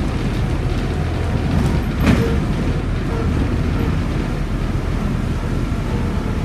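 Škoda 14Tr08/6 trolleybus driving along a wet road, heard from inside the front of the cabin: a steady low rumble, with one sharp knock about two seconds in.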